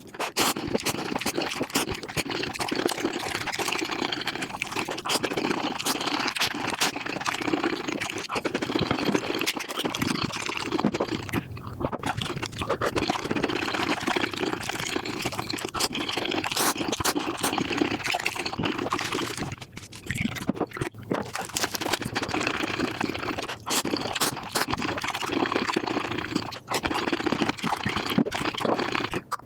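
Mukbang eating sounds sped up about five times: a dense, rapid run of chewing, crunching and slurping with many small clicks, dipping briefly twice.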